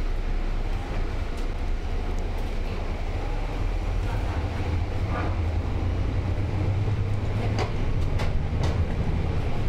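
Inside a moving city bus: steady low engine and road rumble, swelling a little after the middle. A few sharp clicks or rattles come near the end.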